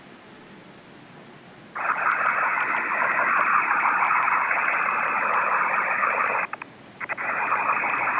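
Loud, steady hiss with a static-like quality that switches on abruptly about two seconds in. It drops out for about half a second near the end, then comes back just as suddenly.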